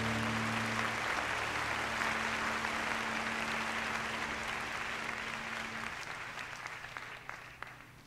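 Concert audience applauding on a cassette tape recording of a live jazz set, while the band's last held notes die away during the first second. The applause fades out gradually toward the end.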